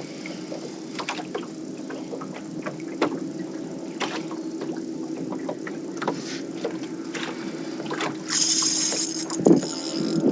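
Steady low hum of a boat's trolling motor with scattered clicks and knocks of fishing tackle and the boat while a big fish is fought on the line. About eight seconds in, a brief high buzz as the reel's drag gives line.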